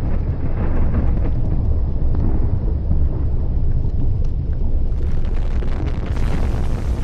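Erupting volcano's crater giving a deep, steady rumble, with scattered faint crackles over it.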